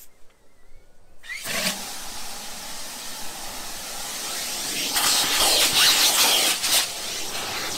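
Car wash vacuum cleaner running with a steady rushing noise, starting about a second and a half in and growing louder near the middle, with crackly bits as debris is sucked up.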